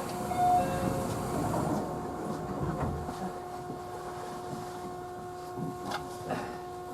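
Inside a JR Central 311 series electric train car: a steady hum made of several fixed tones over a low rumble. The rumble slowly quietens, and a few faint clicks come near the end.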